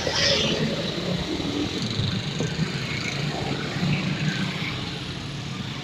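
Road vehicle noise: an engine running with a steady low hum under a general traffic wash.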